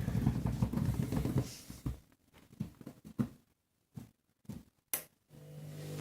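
Candy washing machine in its main wash: the drum turning the load for about two seconds, then a pause broken by a few soft knocks, then the motor starting again near the end with a steady hum that grows louder.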